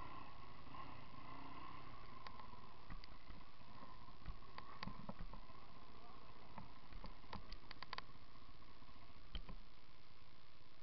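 Enduro motorcycle moving over rocky ground: a steady dull hiss with scattered clicks and knocks, in a cluster about halfway through and a quick run of them near the two-thirds mark, as the bike jolts over stones.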